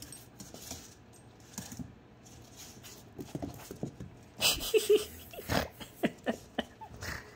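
Australian Shepherd puppy and older Aussie playing: short, high whimpers and yips, with one loud burst about four and a half seconds in, followed by several quick yips.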